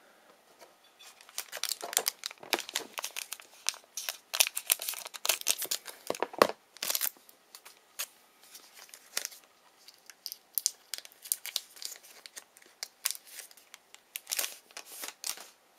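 A trading-card pack's wrapper being torn open and crinkled by hand: a run of sharp crackles and rips, densest in the first half and thinning out later.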